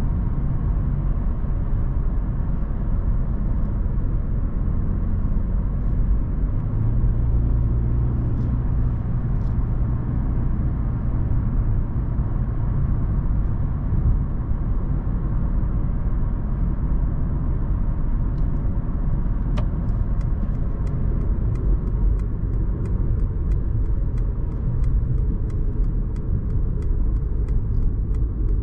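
2022 Mercedes-Benz C 220 d's 2.0-litre four-cylinder diesel and tyres on the road, a steady low rumble while driving, with a steadier low engine tone for a few seconds near the start. From about two-thirds of the way through, a regular light ticking runs at about two ticks a second.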